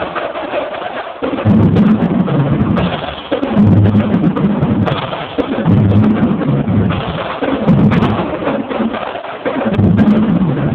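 Marching drumline playing: the tuned bass drums sound low pitched notes in rhythmic runs about a second long, with sharp drum strokes cracking over them.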